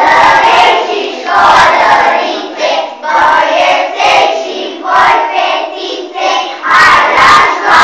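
A group of young children singing together loudly, in short phrases about a second long with brief breaks between them.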